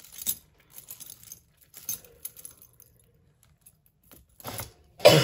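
Beads and metal chains of a tangled pile of costume jewellery clicking and rattling lightly as they are handled, then a loud cough right at the end.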